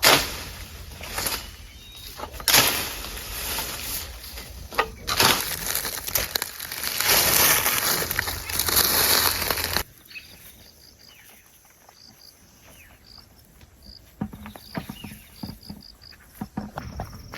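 Loud rustling and handling noise with a few knocks for about ten seconds. It then drops off abruptly to quiet rural ambience with short, high chirps of insects.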